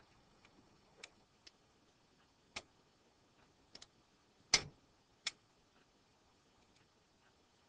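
Faint, sharp clicks and taps of a tool on a Nokia N70 phone's internal parts as a flex cable connector is unclipped. There are about seven clicks at irregular intervals, the loudest about four and a half seconds in.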